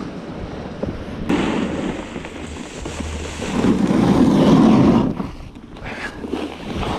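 Snowboard sliding and scraping over packed snow, with wind buffeting the microphone. A louder, rougher stretch comes about three and a half to five seconds in.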